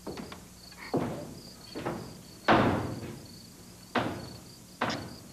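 Crickets chirping steadily, with a series of six sharp thuds or knocks at irregular intervals of about a second, each dying away quickly; the loudest comes about two and a half seconds in.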